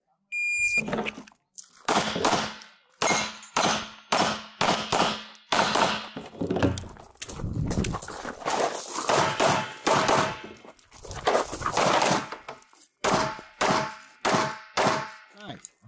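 A shot-timer beep, then a Beretta APX A1 full-size pistol firing rapid strings of shots with short pauses between them.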